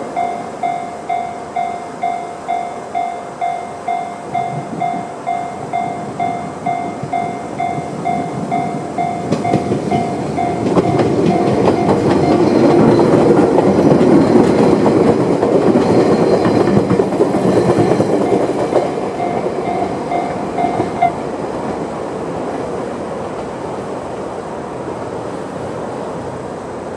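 Japanese level-crossing alarm sounding the JR standard electronic bell tone, about two pulses a second, while a Chichibu Railway 7500-series electric train passes; the train's rumble and wheel clatter build from about ten seconds in, peak, then fade. The bell cuts off suddenly about two-thirds of the way through.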